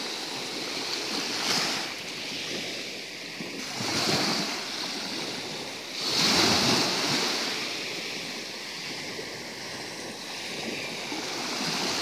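Small sea waves breaking and washing up a sand-and-pebble beach, surging every two to three seconds, the biggest surge about six seconds in.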